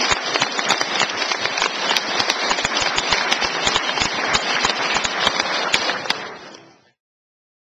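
Audience applauding: a dense, even stream of hand claps that fades away near the end.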